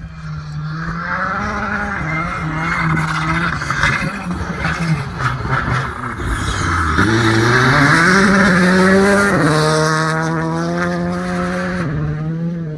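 Rally car engine running hard, its pitch holding steady, dipping about halfway through, then climbing as it accelerates to its loudest point and settling again.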